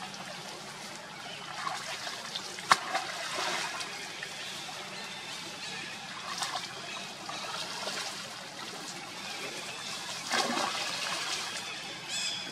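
Water splashing and trickling as a monkey swims in a shallow pond, with short surges of splashing. There is a single sharp click about a third of the way in, and a brief high-pitched call near the end.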